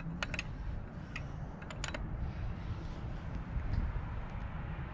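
A few light clicks and taps of small metal engine parts being handled, mostly in the first two seconds, over a low steady rumble.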